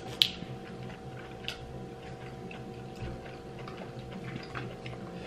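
Scattered small clicks and cracks of king crab leg shells being picked apart, with forks tapping on plates; one sharp click just after the start is the loudest. A steady low hum runs underneath.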